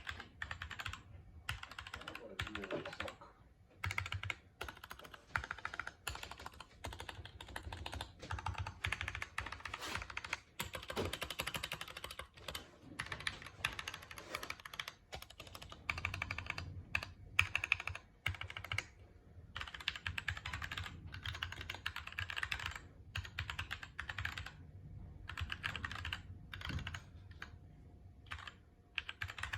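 Typing on a GMMK mechanical keyboard with Gateron Clear linear switches: quick runs of key clacks broken by short pauses.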